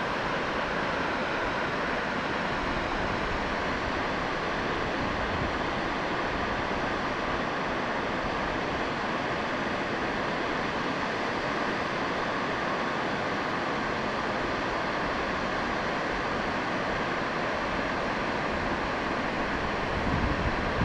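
Steady rush of water pouring over a river dam weir, an even hiss-like roar with no change in strength.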